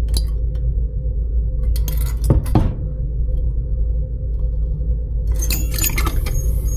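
Metal clicks and clinks from a Boeing 747-400ERF high pressure shutoff valve being opened by hand and let go, its butterfly and linkage clacking in short clusters near the start, about two seconds in, and again near the end. The valve has play on its butterfly axle and does not fully close by itself. A steady low hum runs underneath.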